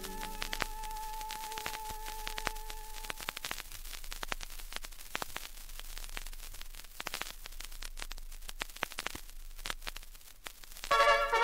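Vinyl record surface noise between tracks: a faint steady hiss with scattered clicks and crackles. For the first three seconds or so, a faint held note lingers.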